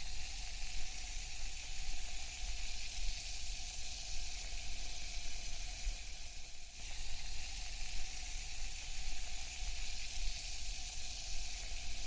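Carbonated water fizzing: a steady, even hiss of many small bursting bubbles.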